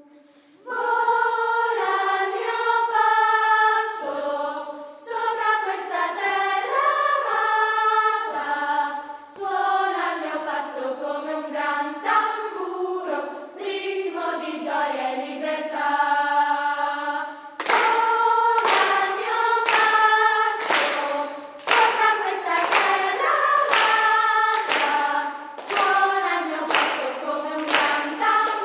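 Children's choir singing unaccompanied, with smoothly held notes. About two-thirds of the way in the singers begin clapping a steady beat while they go on singing.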